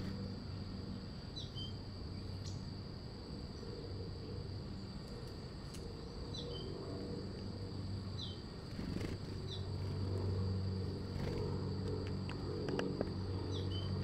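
Steady high-pitched insect drone, typical of crickets, with short falling bird call notes every few seconds and a low steady hum beneath.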